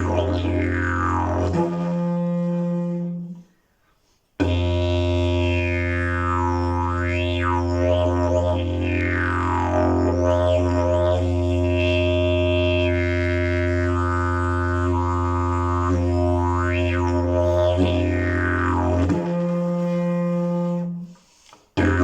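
Fiberglass and dried-leaf slide didgeridoo playing a steady low drone, its overtones sweeping up and down as the mouth shape changes. Twice, about two seconds in and again near the end, the drone gives way to a short higher note and then stops briefly before starting again.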